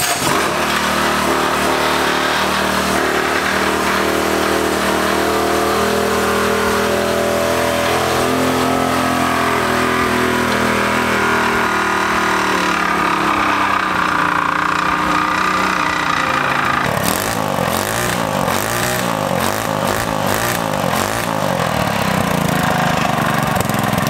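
Stage 2 Predator 212 single-cylinder four-stroke engine with a billet rod, Mod 2 cam, Mikuni carburettor and open exhaust pipe, running on its first start after a rebuild with the idle screw turned well in. It runs steadily at first; in the last several seconds its speed rises and falls repeatedly.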